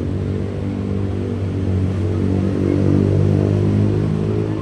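A motor vehicle's engine running close by, getting louder to about three seconds in and easing off near the end.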